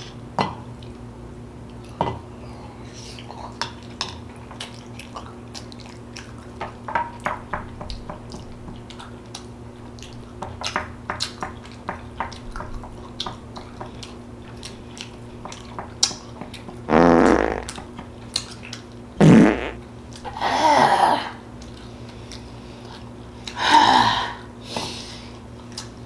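A metal spoon clinking and scraping in a tin can, with small mouth sounds of eating. Then come four loud, pitched gassy bodily noises, each up to about a second long.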